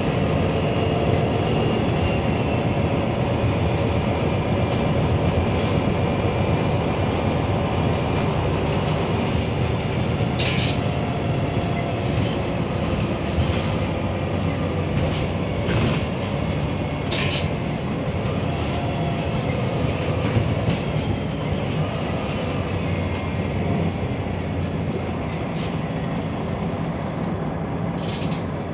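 A MAN NL323F A22 diesel bus on the move, heard as a steady rumble of engine and road noise. A few sharp rattles from the body and fittings cut through it.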